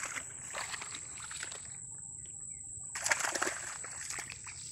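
Shallow pond water splashing and sloshing as someone wades and moves about in it. The sound thins out briefly about two seconds in, then denser, louder splashing resumes.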